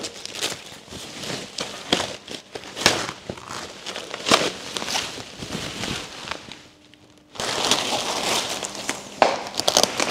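Plastic protective wrap being peeled away and handled, crinkling and crackling in many quick short rips, with a brief lull about two-thirds of the way through.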